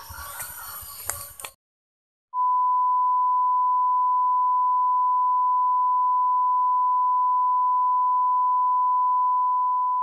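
A steady, pure beep tone near 1 kHz, held for about eight seconds, starts abruptly after a cut to dead silence about two seconds in. Before the cut, brief outdoor sound with clicks and high chirps.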